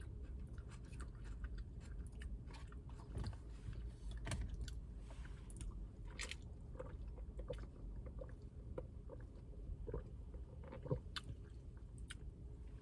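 A person chewing and crunching a mouthful of salad, with small wet clicks and crackles spread irregularly throughout.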